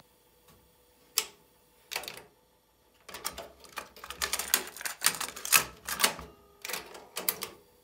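Plastic clicks and rattles of a compact cassette being handled in the open cassette door of a Kenwood KX-67W cassette deck: a sharp click about a second in, another shortly after, then a quick run of clicks and knocks from about three seconds in until near the end.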